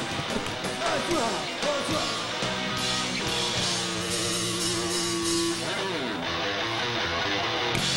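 Live psychobilly band playing: electric guitar, upright bass and drums, with some singing. A long held note runs through the middle and ends in a downward slide about six seconds in.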